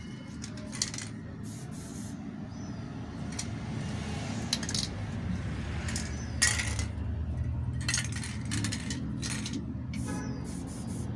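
Aerosol spray paint cans hissing in a series of short bursts against a wall, with metallic clinks of the cans being handled, over a steady low background rumble.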